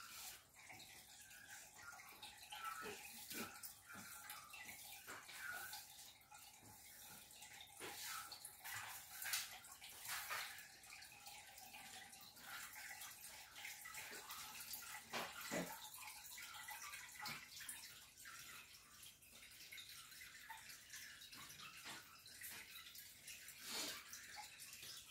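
Faint trickling and bubbling of aquarium water. A faint steady hum runs underneath for about the first half.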